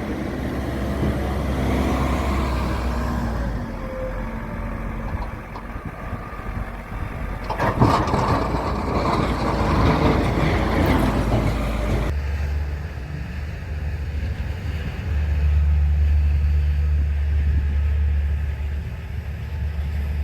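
Vehicle engines running with road and wind noise, a steady low drone throughout. The sound changes abruptly about twelve seconds in.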